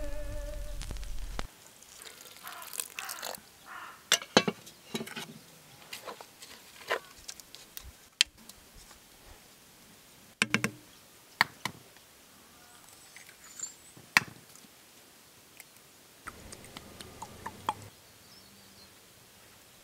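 Hand food preparation in a metal pot: dry, shredded dried meat (borts) crackling and rustling as it is crumbled in, then a wooden spoon stirring it in water with sharp clicks and knocks against the pot. Background music ends about a second and a half in.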